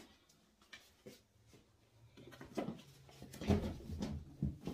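Handling noise: a few separate light clicks, then from about two seconds in a busier run of knocks, thuds and rustling as objects are moved about.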